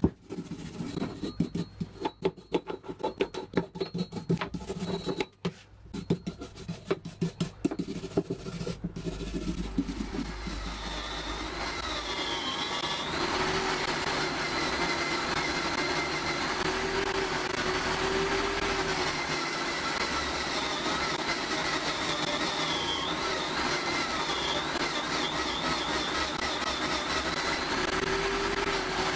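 Quick irregular scraping strokes on an old steel pipe wrench worked by hand, then from about ten seconds in a Skil 315 electric drill in a bench stand spinning a wire wheel brush steadily while the rusty wrench jaw is pressed against it to strip the rust. The drill's pitch dips briefly a few times as the load comes on.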